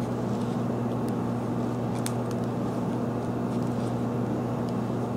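Steady low machine hum with an even pitch, with a few faint ticks over it.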